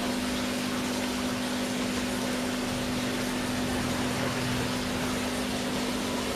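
Small aquarium water pump humming steadily, with a constant hiss of water flowing.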